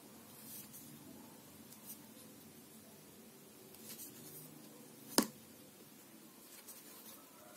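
Faint rustling and scratching of fine cotton thread being worked with a steel crochet hook by hand, with a few light ticks and one sharp click about five seconds in.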